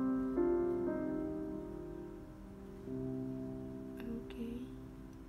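Soft background piano music, with held notes and chords changing every second or so.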